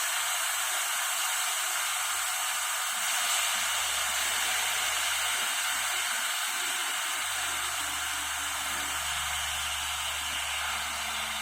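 Steam hissing steadily out of a WMF Perfect pressure cooker's release valve as the pressure is let off after cooking, easing slightly toward the end.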